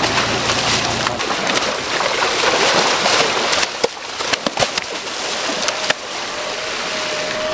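Large groupers thrashing in shallow pond water as they are scooped into a plastic basket, making continuous heavy splashing. Past the middle it thins to sharper separate slaps and splashes, and water pours from the basket as it is lifted out.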